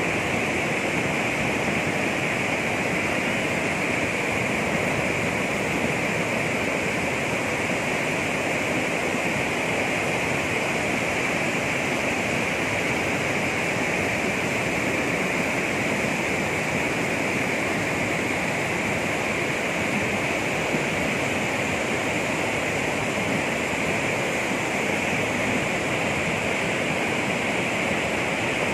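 Steady rush of a swollen mountain river in flood, fast muddy water pouring over boulders and gravel.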